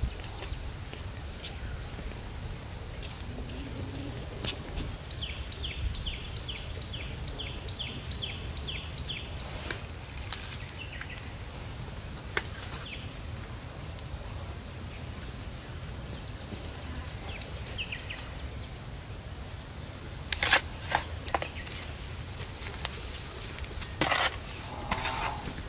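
Rural outdoor ambience with a steady high insect drone. About five seconds in comes a run of a dozen quick, falling chirps. Near the end come a few short scraping knocks, the loudest sounds.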